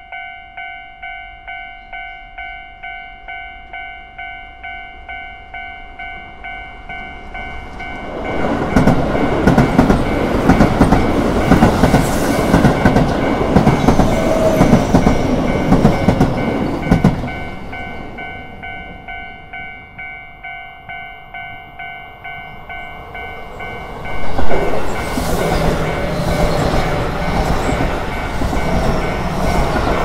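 Japanese level-crossing warning bell ringing at about two strokes a second while electric Keio Line commuter trains pass. A train rumbles and clatters over the crossing for about nine seconds, the bell is heard clearly again in the lull, then a second train arrives from the other direction with a sharp loud peak and runs past to the end.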